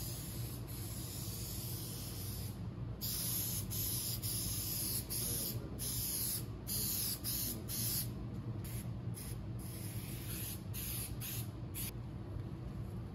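Aerosol spray-adhesive can hissing as headliner glue is sprayed onto the board. The spray is long at first, then comes as a series of short bursts with brief pauses between them.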